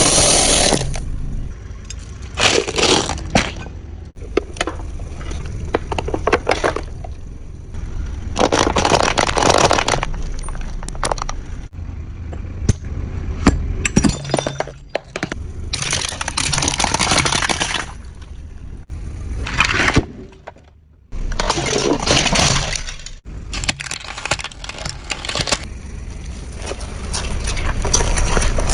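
Car tyres rolling over and crushing brittle objects: a series of loud crunching, cracking and breaking bursts, each lasting a second or two, over a steady low rumble from the car.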